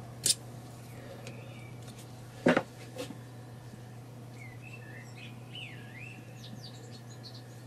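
Small clicks and knocks of metal and plastic parts being handled on a VCR tape-deck mechanism, the loudest a knock about two and a half seconds in, over a steady low hum. About halfway through, a bird chirps faintly in the background: a short run of quick rising and falling whistles.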